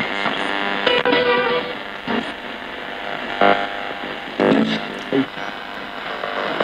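Thomson portable radio used as a ghost box, its tuner sweeping across the band: chopped snatches of broadcast music and hiss that jump abruptly every second or so as it skips from station to station.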